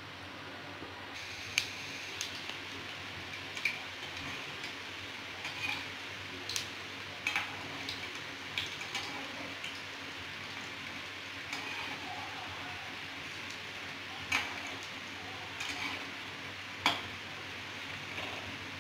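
Pakoras deep-frying in hot oil in a steel kadai, a steady sizzle, with a metal slotted spoon clinking against the pan about a dozen times as they are stirred and turned.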